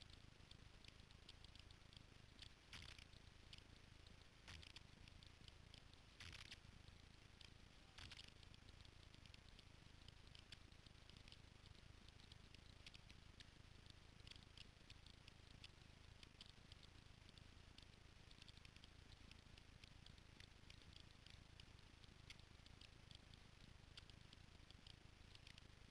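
Near silence: faint outdoor ambience with scattered tiny ticks and a few soft rustles in the first eight seconds.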